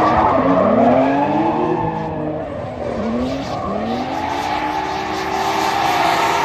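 Two drift cars sliding in tandem. Their engines rev up and down again and again, under the tyres screeching.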